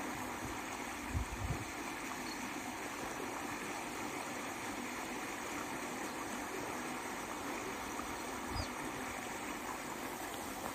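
Canal water running steadily through the gaps between stones at the base of a concrete bridge pier, a constant trickling wash. A few brief low thumps sound about a second in and again near the end.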